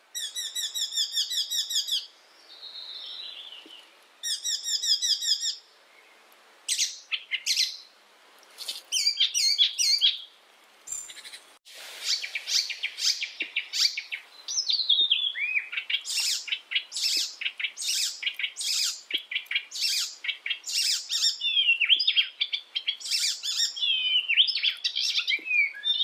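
Icterine warbler singing. It gives two phrases of fast repeated notes with a falling whistle between them, then, from about halfway, a long unbroken run of varied quick notes that rise and fall.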